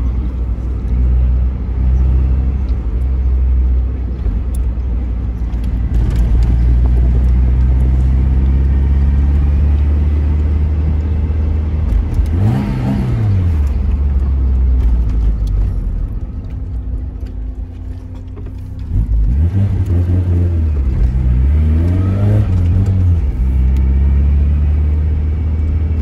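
Tofaş Doğan SLX's four-cylinder petrol engine and Varex aftermarket exhaust heard from inside the cabin while driving: the engine runs steadily, the revs climb and drop quickly about halfway through, it goes quieter for a few seconds as the throttle is lifted, then the revs climb and fall again twice near the end.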